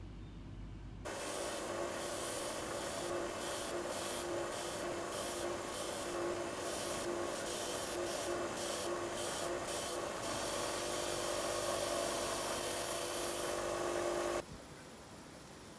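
Bench grinder's wire wheel spinning with rusty steel screws held against it, scrubbing the rust off in short passes. It starts about a second in and stops abruptly near the end.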